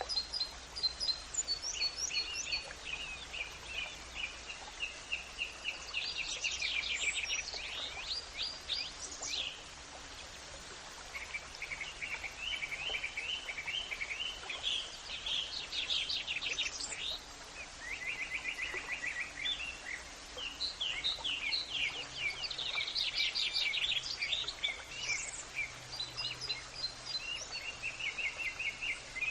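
Songbirds singing: overlapping series of quick high trills and repeated chirps, with short lulls, over a faint steady background noise.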